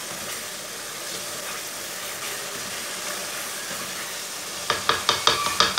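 Masala frying with a steady sizzle in an aluminium kadai while a wooden spoon stirs it. Near the end, a quick run of about six knocks as the spoon strikes the pan.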